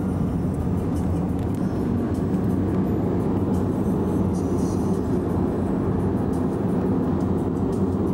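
Steady road and engine noise inside a car's cabin at highway speed.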